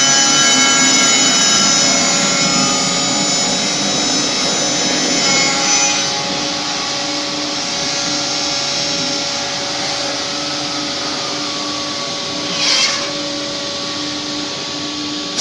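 Automatic linear copy shaper running and cutting wood, with a steady multi-tone whine from its spindle motors. The whine changes about six seconds in, and a short hissing swish comes about three-quarters of the way through.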